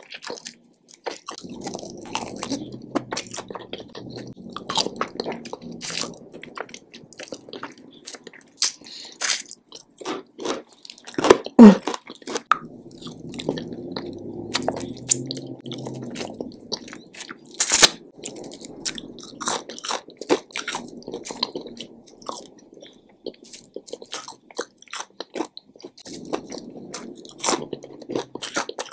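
Close-miked eating of a dry-rubbed fried chicken wing: biting, crunching and chewing with wet mouth and lip sounds, and sucking meat off the bone. Two loud mouth sounds stand out, a bit before halfway and again about two-thirds of the way in.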